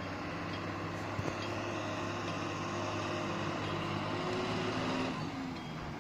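A vehicle's engine running steadily on a mountain road, with a few light clicks of rattle; its note changes and drops a little about five seconds in.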